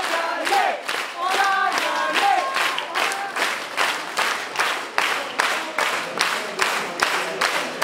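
A crowd clapping in unison at about three claps a second. Chanting voices ride over the clapping for the first couple of seconds, then fade, leaving the steady rhythmic clapping.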